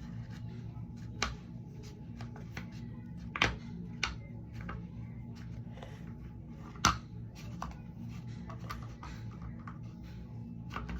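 Sticky slime being kneaded and stretched by hand, giving a run of irregular small clicks and pops, with three louder pops about a second, three and a half seconds and seven seconds in.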